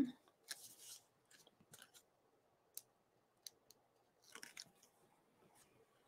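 Faint, scattered taps and rustles of cardstock being handled and laid down on a card base, with a few short sharp ticks and a small cluster of rustling a little past four seconds in.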